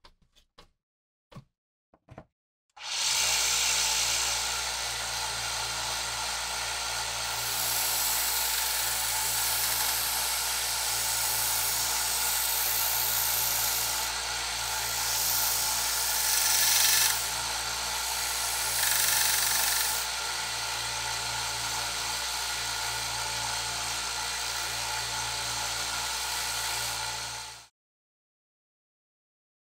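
Bench-top belt sander running, its narrow belt grinding the metal blade of a pruning saw. It starts about three seconds in after a few handling clicks. The grinding grows louder and harsher in stretches as the blade is pressed against the belt, and it stops abruptly near the end.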